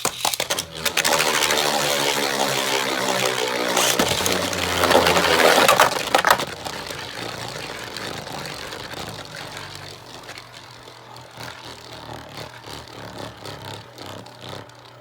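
Beyblade spinning tops launched into a plastic stadium, whirring and clattering as they spin and collide. The whir slides down in pitch and the sound is loudest about five seconds in, then fades slowly as the tops lose spin.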